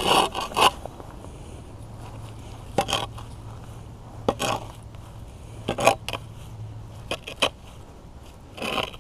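Shovel digging into soil under a concrete slab: the blade scrapes in about six short strokes, a second or so apart.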